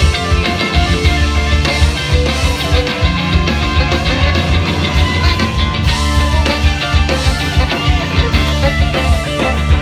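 Indie rock band playing live: electric guitar over a heavy bass line and a steady drum beat.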